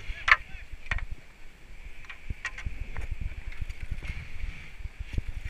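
White water rushing around a sea kayak as it slides off the rocks into a rapid and is paddled away, with sharp knocks of hull and paddle and gusty rumble on the helmet-mounted microphone.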